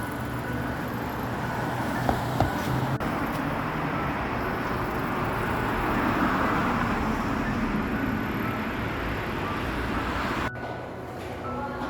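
Vehicle noise swelling to a peak a little past the middle and easing off again, as of a vehicle going by, then dropping suddenly near the end.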